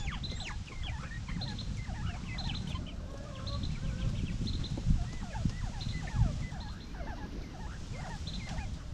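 Quail in a coop chirping and peeping, many short gliding calls overlapping, with brief high notes repeating every second or so over a low steady rumble.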